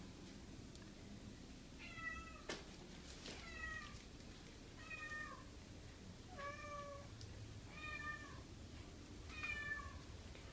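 Calico cat meowing six times, short calls about a second and a half apart, each dipping in pitch at its end.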